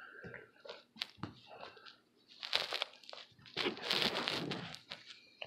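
Hard plastic sports-card holders being handled: a couple of sharp plastic clicks about a second in, then two longer bouts of rustling and scraping as the cased cards are shuffled and set down on a bedspread, the louder one past the middle.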